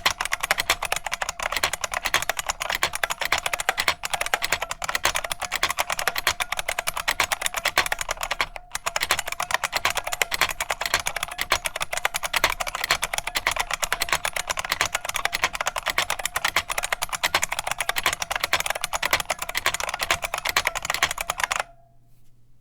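Unicomp Model M space-saver keyboard's buckling springs over membrane switches clicking under fast, continuous typing. There is a brief break about eight and a half seconds in, and the typing stops abruptly about a second before the end.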